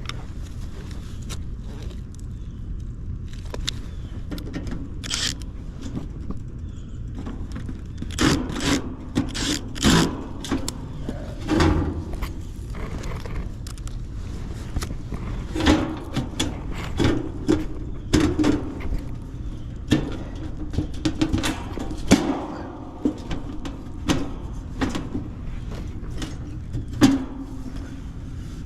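Irregular knocks, clicks and scrapes of an HVAC unit's sheet-metal cabinet being opened and handled, over a steady low hum.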